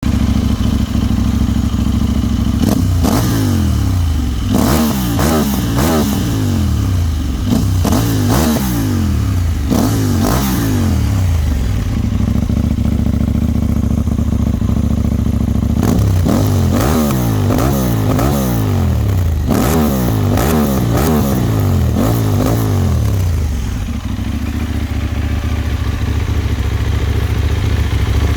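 KTM 890 Duke's parallel-twin engine through an Akrapovic slip-on exhaust with the catalytic converter removed, idling and then revved in a run of quick throttle blips. It settles back to idle, gets a second run of blips, and returns to idle near the end.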